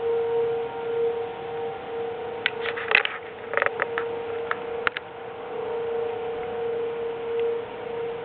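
Outdoor tornado warning siren sounding one steady tone, its level slowly swelling and fading. A cluster of short, sharp sounds comes about three to five seconds in.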